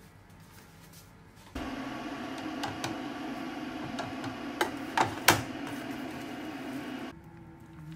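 An aluminium tray and the cling-film-wrapped roll cake in it being handled, giving three sharp clicks and knocks of metal a little past the middle. Under them a steady hum starts abruptly about a second and a half in and stops just before the end.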